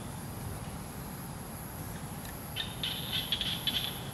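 Forest ambience: a steady low rumble under a thin, steady high-pitched whine. About two and a half seconds in comes a quick run of short, high chirps, like a small bird calling.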